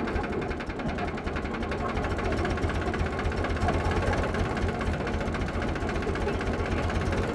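Massey Ferguson tractor's diesel engine running with a steady, rapid beat.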